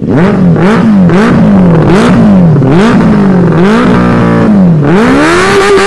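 Benelli 600i inline-four motorcycle engine being revved while parked: a run of quick throttle blips, the note rising and dropping back each time, then a longer rev held near the end.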